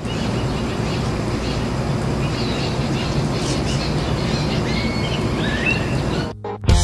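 Outdoor ambience: a steady rushing noise with a few short bird chirps in the middle.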